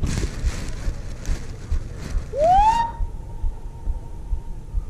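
Wind buffeting a head-mounted camera's microphone on an exposed rock slab, with rustling for the first few seconds. About two seconds in, a high note slides up and is held steady for about two seconds.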